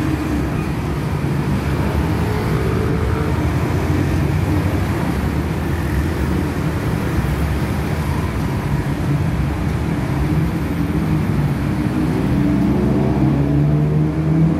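Busy street traffic: cars, motor scooters and a tuk-tuk passing close by with a steady mix of engine and tyre noise. Near the end an engine climbs in pitch as it accelerates.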